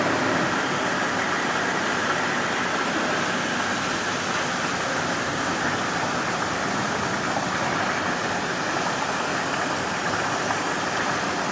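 Steady hissing noise of a CNC multi-torch oxy-gas and plasma strip-cutting machine at work, even and unbroken throughout.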